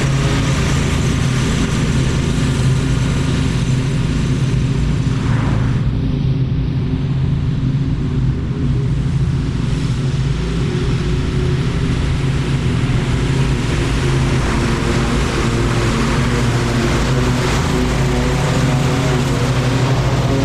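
Small gasoline engine of lawn equipment running steadily at a constant speed while cutting thick overgrown grass.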